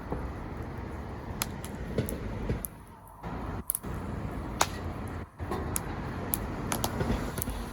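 Wood fire burning: a steady low rush of flame with sharp crackles and pops about once a second.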